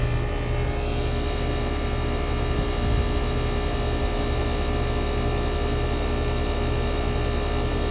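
Heat pump outdoor unit running in heating, its compressor and fan giving a steady low hum.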